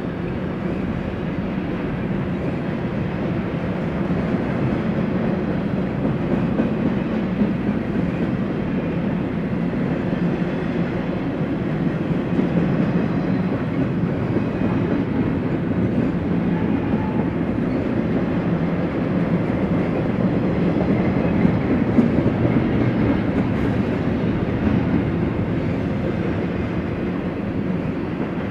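BNSF freight train rolling past, its steel wheels running steadily on the rails.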